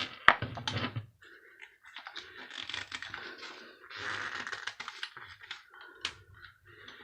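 Light clicks and scraping from the thin metal casing of a small electric bar heater being worked apart by hand. There are sharp clicks in the first second, then a few seconds of rattling and scraping, and a couple more clicks near the end.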